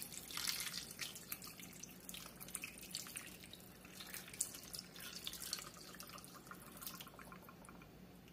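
Chicken broth poured from a can onto a raw turkey and vegetables in a slow cooker, splashing and trickling, thinning out near the end.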